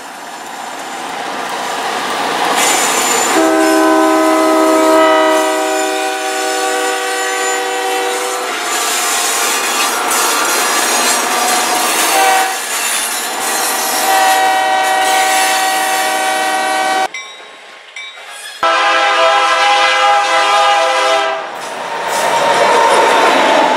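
Diesel freight locomotive air horns sounding three long multi-note chords, over the steady noise of the passing trains' engines and wheels. The sound drops away briefly about three-quarters of the way through, then the horn and train noise return, with the train noise loudest near the end.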